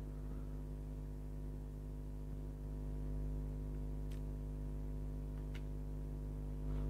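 A steady low electrical-sounding hum made of several unchanging tones, with two faint clicks about four and five and a half seconds in.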